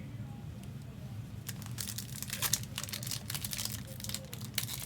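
Trading-card pack wrappers crinkling and cards being handled, in short rustles that start about a second and a half in, over a steady low hum.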